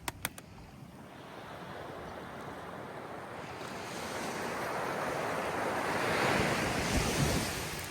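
An ocean wave surging in and washing up, its rush building over several seconds to a peak near the end before easing. Two brief sharp clicks just after the start.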